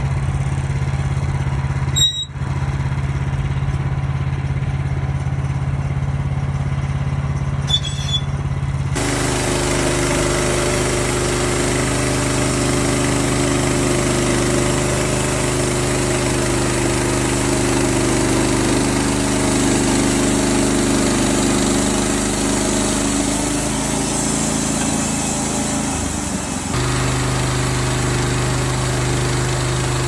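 Wood-Mizer LX55 portable band sawmill running, its engine giving a steady hum. The sound changes abruptly about two and nine seconds in, with a denser, noisier sound between about nine seconds and a few seconds before the end.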